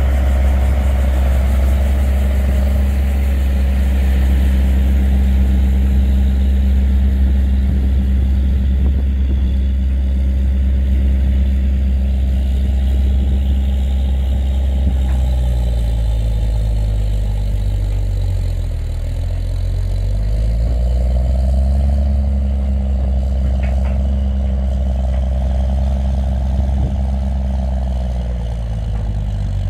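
John Deere 9400 tractor's large six-cylinder diesel engine running hard, pulling a loaded hydraulic scraper through dirt. Its pitch sags for a few seconds past the middle as the engine lugs under the load, then recovers.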